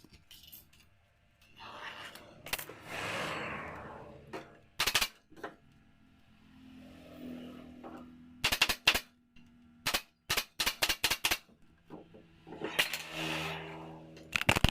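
Upholstery staple gun firing into a sofa frame: single sharp shots, then a quick run of about six in a little over a second, with handling and rustling noise between them.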